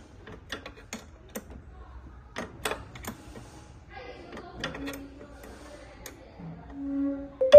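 Irregular metallic clicks and taps of a tool working a screw tight on the ball machine's turntable motor mount. A brief low tone sounds near the end, followed by a sharp knock.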